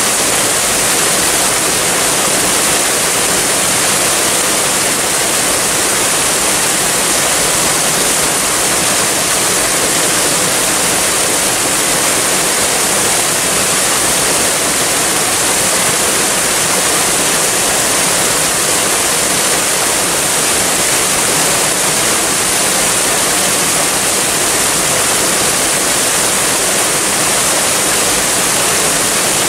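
Waterfall: a steady, unbroken rush of falling water, hissy and strongest in the high end.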